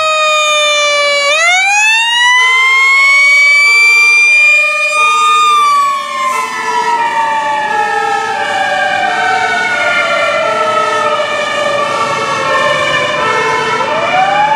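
Sirens of a Seagrave Aerialscope tower ladder truck responding. One siren wails: it rises about a second in, holds high, winds slowly down, and rises again near the end. A second siren alternates between two notes about once a second.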